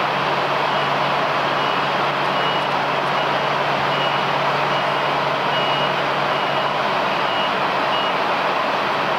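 Airbus A320-211's CFM56 jet engines idling with a steady roar. Over it, a vehicle's reversing beeper repeats a high beep about once a second before stopping near the end.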